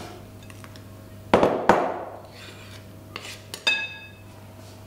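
Measuring cup knocking and clinking against a glass mixing bowl as flour is tipped in: two sharp knocks about a second and a half in, then two lighter clinks near the end with a brief glassy ring.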